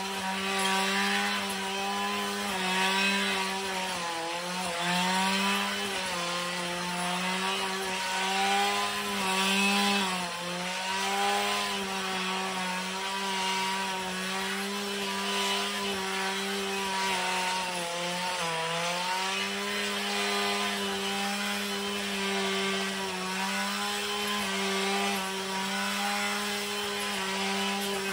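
Husqvarna 545RX two-stroke brushcutter running at high, steady revs while it cuts through thick giant hogweed stalks. The engine note dips briefly three times as the blade bites into the stalks.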